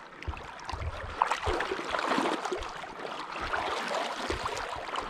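Stream water moving and sloshing around an angler wading in waders, with irregular low thuds from handling or wind on the microphone.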